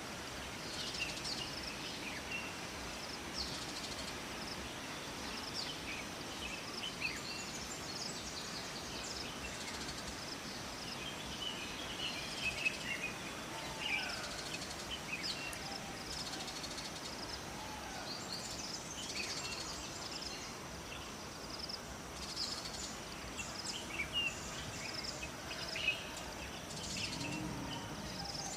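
Steady rush of flowing water with many birds chirping and calling over it in short, scattered bursts.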